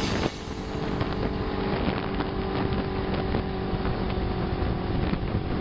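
Honda CB500 parallel-twin motorcycle running steadily at road speed, with wind rushing over the microphone.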